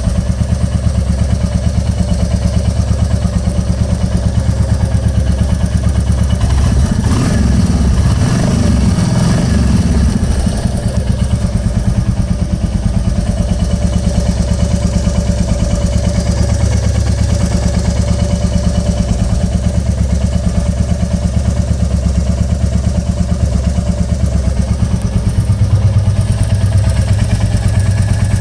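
Royal Enfield Classic 350 single-cylinder engine idling steadily with an even beat, the engine note briefly rising about seven seconds in; it is run to let its valve tappet noise be heard.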